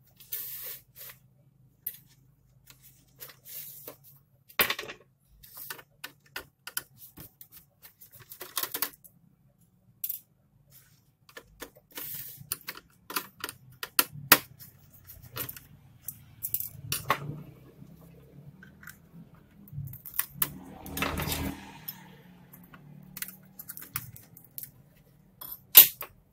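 Irregular small clicks, taps and scrapes of hands and a small tool working on a laptop's opened plastic chassis and motherboard, with a longer rustling scrape about three quarters of the way through and a sharper click near the end.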